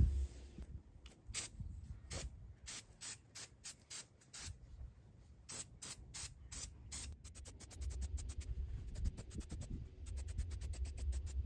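Aerosol can of spray paint hissing in short bursts, spaced apart at first, then quickening to rapid short spurts about two-thirds of the way in.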